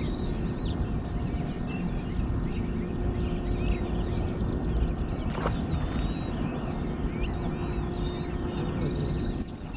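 Several birds chirping and calling over a steady low background noise. A faint steady hum stops near the end, and a single click comes about halfway through.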